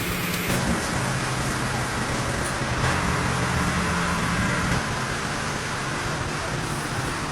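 Engine running steadily: an even low drone with a constant pitch that does not rise or fall.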